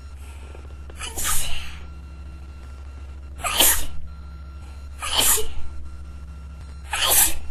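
A person sneezing into a tissue, four sneezes in a row about every one and a half to two seconds: a sneezing fit.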